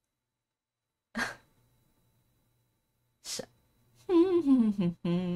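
A woman humming a singsong 'hmm~', starting about four seconds in, its pitch wavering and dipping. Before it come two short breathy sounds, like quick sharp breaths.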